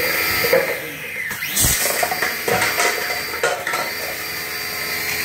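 APR portable jet cleaner (electric pressure washer) running on its high-pressure setting and spraying, a steady electric-motor whine. The whine sags around the middle and spins back up with a rising pitch a little under four seconds in.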